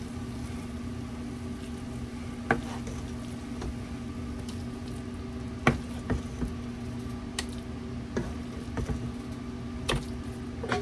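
A handful of sharp light clicks and knocks, spaced a second or more apart, from kitchen items being handled, over a steady hum.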